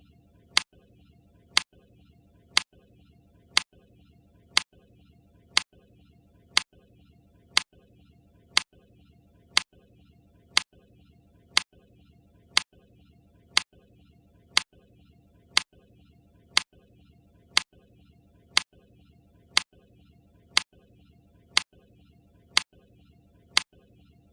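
Countdown timer's clock-tick sound effect: a sharp tick once every second, steady and even.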